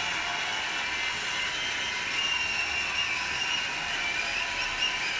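A steady, even hiss with no distinct events.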